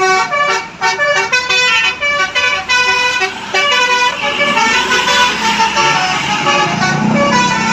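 A bus's musical telolet air horn playing a quick tune of short, stepped notes. From about halfway through, a rushing noise and a low drone rise beneath it.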